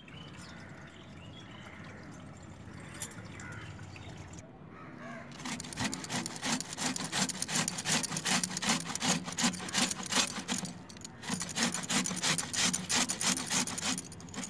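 Ash gourd being grated on a stainless steel box grater: rapid, repeated rasping strokes that start about five seconds in, with a brief pause near eleven seconds.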